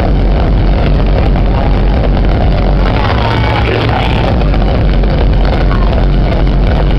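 Loud dance music from a nightclub sound system. The heavy, steady bass comes through muddy and overdriven on a handheld camera's microphone.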